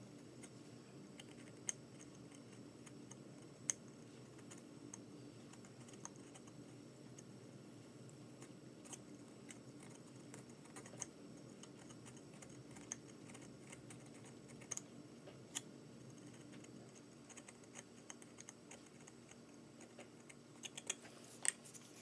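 Small carving knife paring and scraping basswood along a carved bird's tail feathers: faint, scattered ticks and clicks over a low steady hum, with a quick run of louder clicks near the end.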